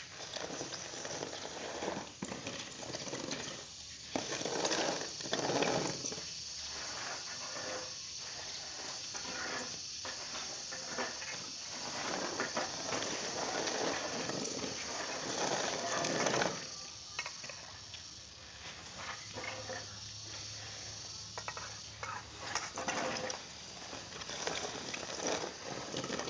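Dry unhulled rice grain being raked across a drying floor with a long-handled manual tool: a rustling, hissing sweep that comes in uneven swells of strokes.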